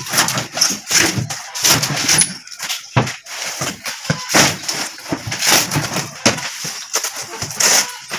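Thin, dry sheets of wood veneer being lifted, flipped and slapped down onto a stack: a rapid, irregular run of papery rustles, crackles and slaps.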